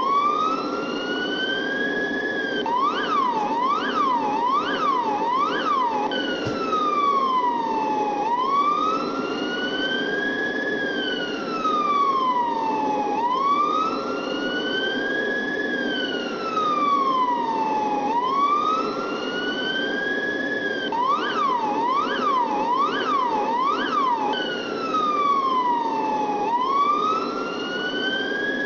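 Police siren in wail mode, slowly rising and falling about every five seconds. Twice it breaks into a short run of four quick yelps, about three seconds in and again about twenty-one seconds in. A steady low hum runs beneath it.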